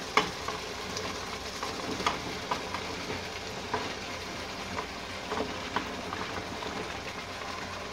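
Tomato-onion masala gravy simmering and sizzling in a pot, with a few light knocks and clatters as cauliflower florets are tipped in from a metal bowl.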